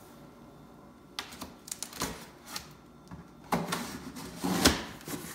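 A knife cutting through the packing tape on a cardboard box: a few light clicks and scratches, then two louder scraping cuts about a second apart near the end, the second the loudest.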